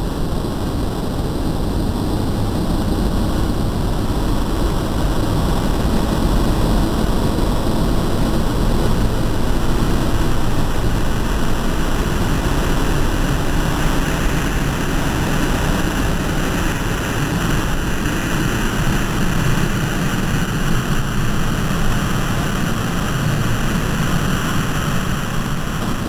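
A loud, steady rumbling noise, heavy in the low end, like an engine or aircraft drone, swelling a little toward the middle.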